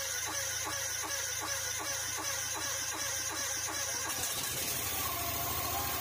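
Loncin V-twin engine being cranked by its electric starter in a cold start after a night at minus 20 °C, turning over with an even pulse of about four beats a second. The cranking stops abruptly near the end.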